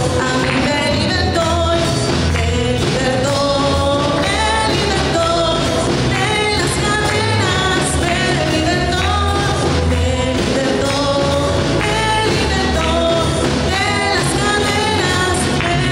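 A praise song played by a band, with a voice singing the melody over a steady, pulsing bass.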